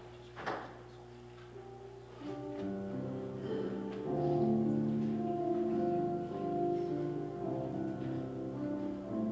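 Slow instrumental music in held chords on a keyboard instrument starts about two seconds in and grows louder. There is one short knock about half a second in.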